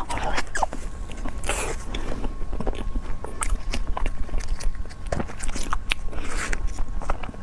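Close-miked mouth sounds of someone eating a soft, Oreo-flavoured cream-filled snack: biting and chewing with many sharp wet clicks and a few longer smacking smears.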